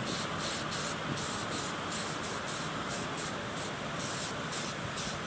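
Aerosol can of primer spraying in short hissing bursts, about two a second, over steady wind noise.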